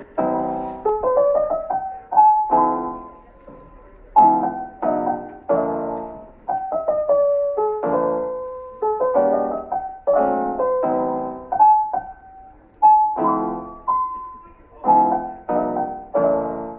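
Solo piano music: chords struck one after another and left to fade, with a simple melody on top.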